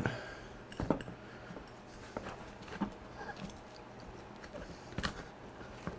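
Raw onion slices being pushed by hand into the neck of a glass jar packed with peppers and pineapple: a few faint squeaks, creaks and light taps of onion against glass.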